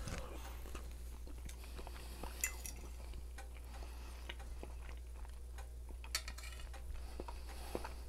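Eating a plate of eggs: a fork clicking and scraping on the plate, with quiet chewing. Scattered small clicks, a couple of them louder, over a steady low hum.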